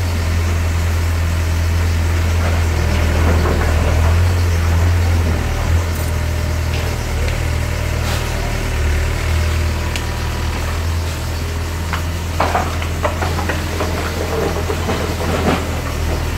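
Diesel engine of a Volvo EW60C wheeled excavator running steadily with a deep hum, the machine working. A few knocks and clatters break in, mostly in the last third.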